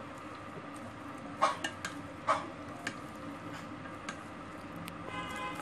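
Wooden chopsticks stirring chicken pieces in a stainless steel bowl, with scattered clicks against the metal and two louder knocks about one and a half and two and a half seconds in. The chicken is being tossed in egg and tapioca starch to coat it before frying.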